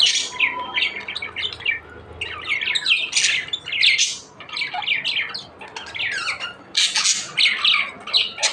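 Budgerigars chattering and squawking: a rapid run of short, scratchy calls, louder in clusters, with no pause.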